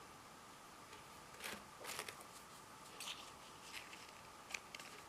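Faint, scattered light clicks and taps of small metal lock picks being handled and set down, half a dozen over a few seconds, over a faint steady hum.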